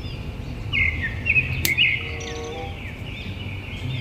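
Birds chirping in quick repeated calls over a steady low background hum, with one sharp click about a second and a half in.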